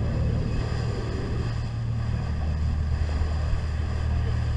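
Boat engine running with a steady low drone, under the hiss of water and wind as the boat moves through the sea.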